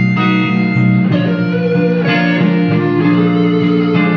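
Guitar playing a slow blues instrumental passage of held, ringing notes.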